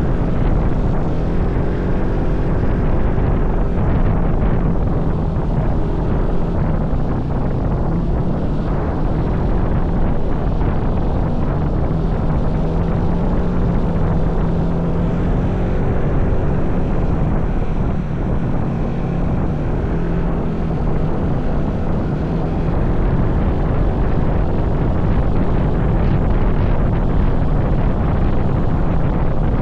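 A vehicle engine running steadily at road speed, with wind rushing over the microphone.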